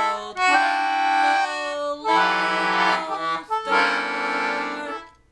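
Elise Hayden duet concertina playing held chords, several notes sounding together, in phrases split by short breaks as the bellows change, then stopping about five seconds in.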